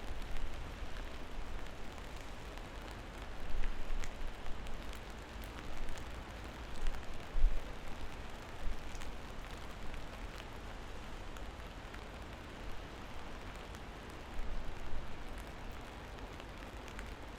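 Steady rain with scattered individual drops ticking, over a low rumble that swells up several times.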